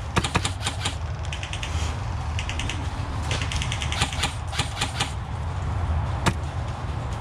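Airsoft guns firing full-auto in several rapid bursts of clicking shots, about a dozen a second, with one single sharp shot near the end.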